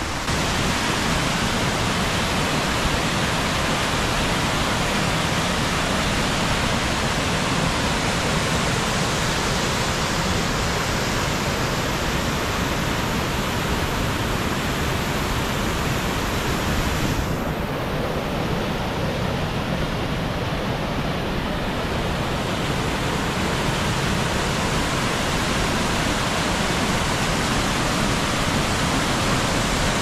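Bash Bish Falls' final 60-to-80-foot drop: a steady, dense rush of heavy falling water, loud enough to drown out voices. About halfway through, the sound turns duller for a few seconds, then comes back full.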